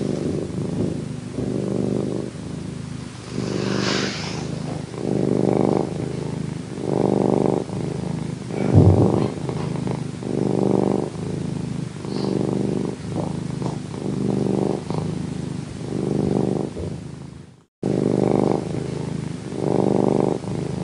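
Domestic cat purring in a steady rhythm, a swell roughly every second and a half, with one short low thump about nine seconds in and a brief break in the sound near the end.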